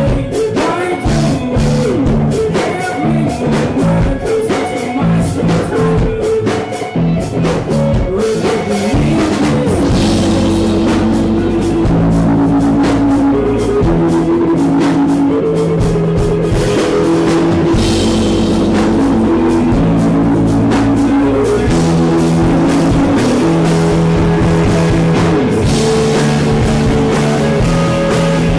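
A rock band playing live, with electric bass among the instruments. The first eight or nine seconds are choppy and punctuated by sharp hits; after that the band moves into a fuller, steadier and slightly louder section of held notes and chords.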